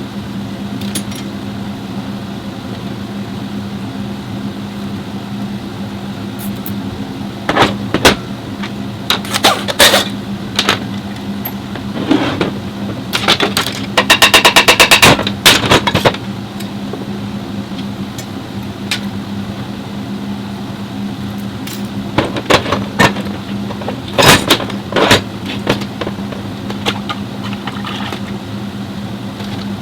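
A steady low mechanical hum, with scattered loud knocks and clatter, and about halfway through a rapid, evenly spaced rattle lasting about two seconds.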